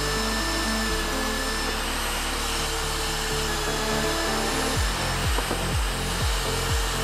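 Drill press running with its bit cutting through steel flat iron, a steady grinding noise. Background electronic music plays over it, with a regular bass beat coming in about five seconds in.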